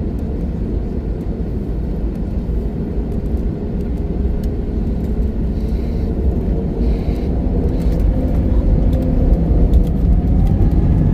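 Airbus A320neo cabin noise at the start of a takeoff: a steady engine and wheel rumble growing gradually louder, with a rising whine near the end as the jet gathers power and speed.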